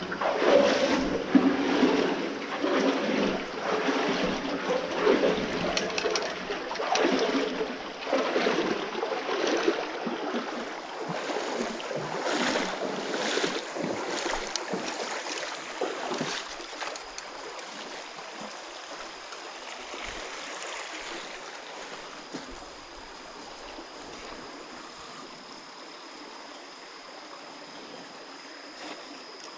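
Footsteps wading through shallow creek water inside a concrete culvert, splashing and sloshing at about one step a second. After about 16 seconds the splashing stops and the creek's steady flow remains, with a thin steady high whine.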